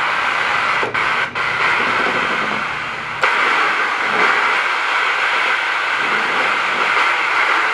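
Steady rushing, hiss-like surf noise from a sound-effects player's ocean-waves setting. It cuts out briefly twice about a second in and comes back louder after about three seconds.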